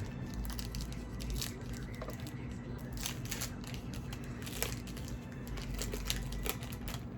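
Trading cards and their packaging being handled: faint, scattered crinkling and rustling, with small clicks now and then.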